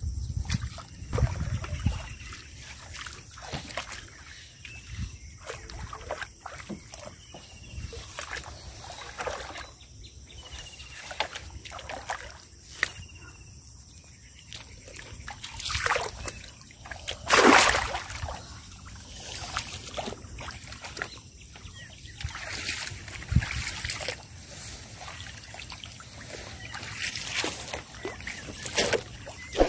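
Shallow muddy water splashing and sloshing as a person wades and gropes through it by hand, in scattered irregular splashes, with one louder splash a little past the middle.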